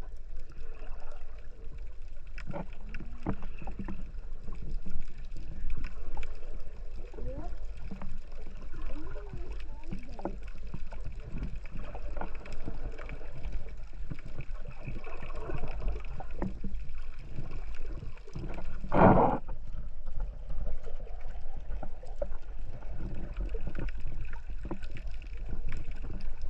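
Water lapping and sloshing with wind rumbling on the microphone and faint distant voices. A short, louder burst comes about nineteen seconds in.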